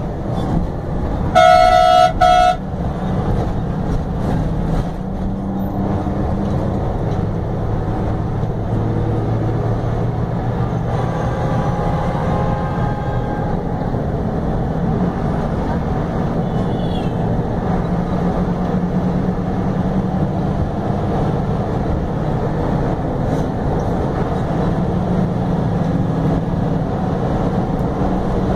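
Steady engine and road drone of a bus on the move, with one loud horn blast lasting about a second near the start.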